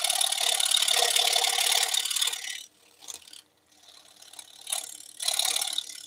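Scroll saw blade cutting thin wood along a pattern line: a fast, steady buzz that cuts off suddenly about two and a half seconds in. After that it is quiet, apart from a brief buzz near the end.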